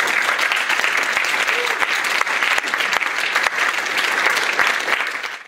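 Audience applauding steadily, a dense patter of many hands clapping that cuts off suddenly at the end.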